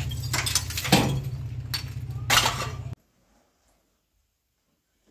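Hammer striking a brick wall and loosened bricks knocking and clinking as they are worked free: several sharp strikes over a steady low hum. It all cuts off about three seconds in.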